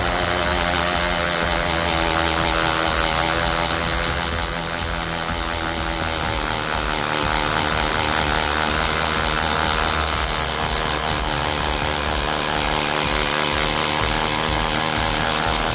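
Tool n Tool GTC-HD18V 18 V cordless hammer drill running steadily without a break as it bores into a concrete paving block, its motor very hot under the long load.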